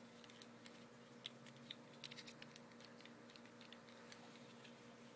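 Faint, scattered clicks of a small battery-powered light being handled and its switch pressed as it is tried, over a faint steady hum.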